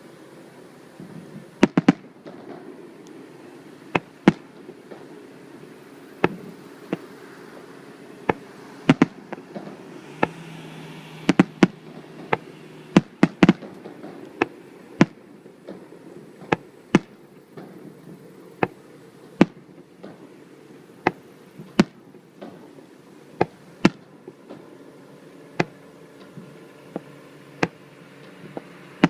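A fireworks display: shells bursting as sharp bangs at irregular intervals, sometimes two or three in quick succession, over steady background noise.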